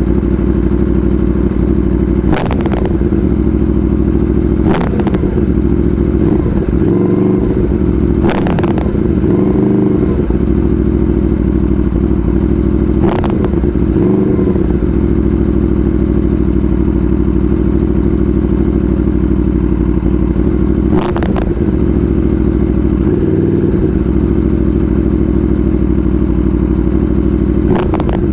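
Aprilia Tuono V4 engine running loud and steady under way, with a few brief swells in pitch and several sharp cracks spread through, the cracks partly clipped by the microphone's distortion on transients.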